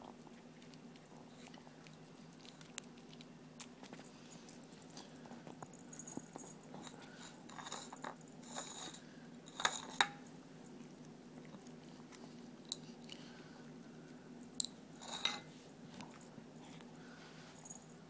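A puppy eating dry kibble from a bowl: scattered small crunches and chewing, with a few louder clicks about ten seconds in and again about fifteen seconds in.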